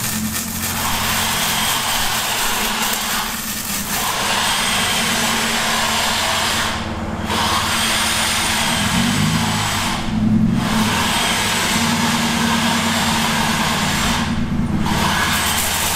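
Dodge Durango R/T's 5.7 Hemi V8 running on the lift, a steady low engine note under a constant hiss that drops out briefly three times.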